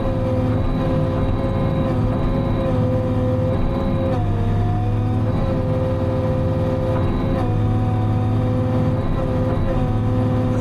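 Timberjack 608 harvester's diesel engine running steadily, heard from inside the cab. Its tone shifts briefly about four seconds in, then settles again.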